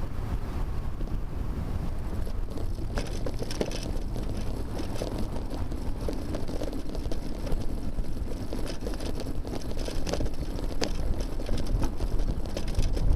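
Wind buffeting the microphone of a bicycle-mounted rear camera while riding, a steady low rumble, with frequent small clicks and rattles from about three seconds in.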